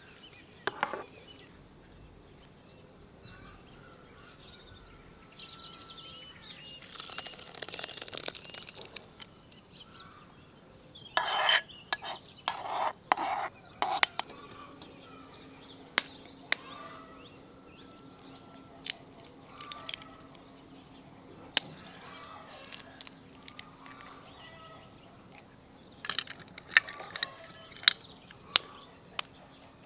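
Small birds chirping in the background while dough is mixed by hand: a run of short, loud scraping and slopping sounds about halfway through as thick yogurt is spooned from a clay bowl into crumbled flour and butter, and a few sharp clicks and taps, more of them near the end.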